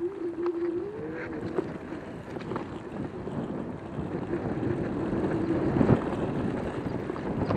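Joyor S10S electric scooter riding over grass: a steady motor whine that bends up briefly about a second in and fades out after about five seconds, over rumble and rattling from the tyres on bumpy turf. Some wind on the microphone.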